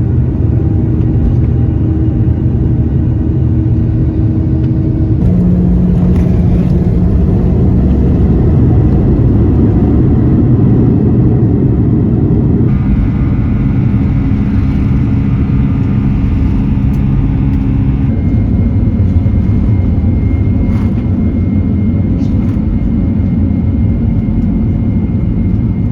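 Boeing 737 jet engine noise, a loud steady rumble with a few humming tones. Its character changes abruptly three times as the recording cuts between flights.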